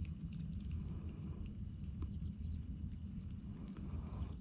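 Fishing reel being cranked to bring in a hooked bluegill: a low, uneven rumble with a few faint clicks.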